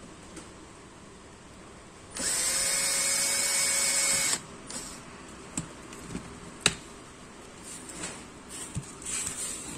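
Cordless drill boring a screw hole through a plastic front skirt. The motor spins up quickly about two seconds in, runs steadily for about two seconds, then stops. A few sharp clicks and knocks follow.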